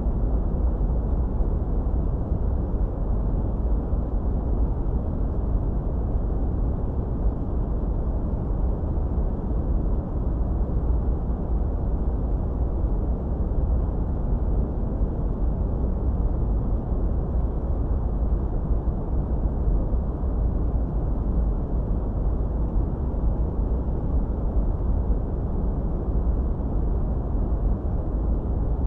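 A steady white-noise track, filtered dark: a deep, even rumbling hiss with most of its weight in the bass and hardly any treble, not changing at all.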